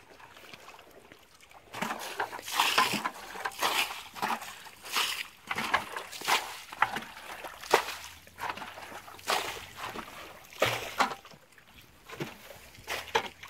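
Muddy water splashing as a plastic bucket is scooped through a shallow puddle and flung out, over and over: bailing water. The splashes start about two seconds in and come roughly every half second to a second.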